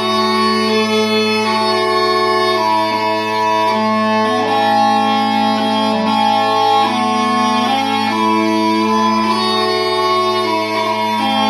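Mouth-blown Scottish smallpipes playing a tune: a chanter melody moving from note to note over steady, unbroken drones.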